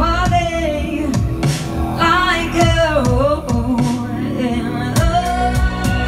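A woman singing live into a microphone over an electronic backing track played from Ableton Live, with a sustained bass line and, near the end, a regular drum beat.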